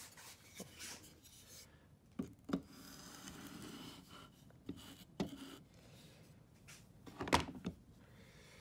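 A wooden board being handled and set against a metal pocket hole jig: a few light knocks and a brief rubbing scrape, with a sharper knock about seven seconds in.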